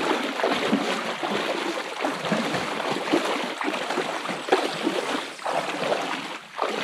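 Shallow creek water splashing and churning in a steady, irregular patter as a person wades through it, pulling a canoe over the shallows.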